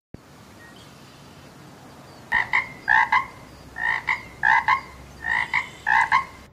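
Toad croaking: six short croaks in three pairs, starting about two seconds in, over a faint steady hiss.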